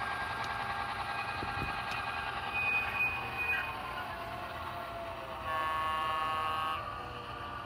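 HO-scale model diesel locomotives' sound decoders playing engine sound through small speakers, then one horn blast of a little over a second about five and a half seconds in.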